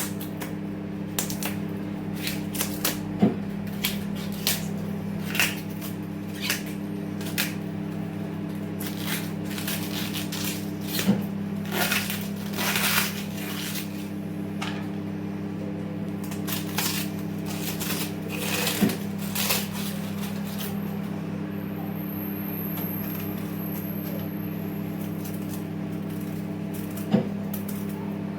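Steady electrical hum of a microwave oven running, with scattered clicks and knocks of pots and utensils being handled.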